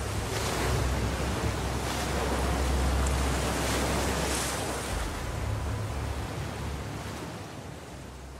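Ocean surf: waves breaking and washing, with a deep rumble, slowly fading away over the second half.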